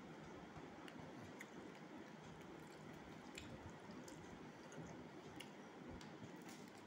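Faint soft squishing of fingers mashing rice with curry on a steel plate, with a few small scattered clicks.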